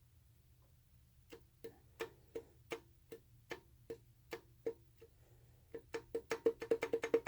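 Mitsubishi 3000GT's V6 engine knocking: a sharp, ringing knock about three times a second, speeding up to about six or seven a second near the end. This is the knock of a bad connecting-rod bearing.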